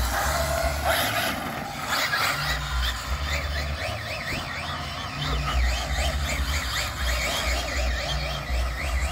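High-pitched whine of an electric RC car's motor, sweeping up and down over and over as the throttle is worked, with low rumbles of wind on the microphone.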